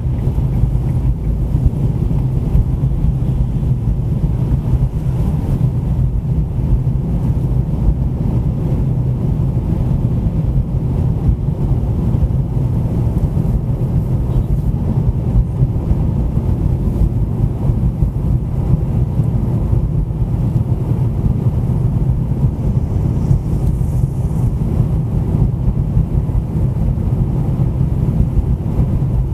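A car driving at a steady speed: a continuous low rumble of tyre and engine noise, with no distinct events.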